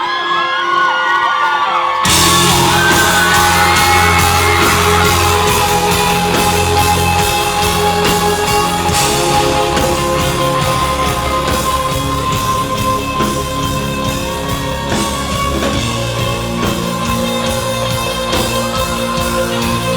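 Live rock band playing loudly in a large hall, recorded from the crowd. For the first two seconds voices yell and whoop over sparse music, then the full band with heavy drums and bass comes in suddenly and plays on.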